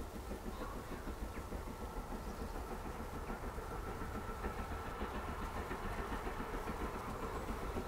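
Distant LNER K1 class 2-6-0 steam locomotive working away from a stand, its exhaust beats heard as a steady rhythmic chuffing.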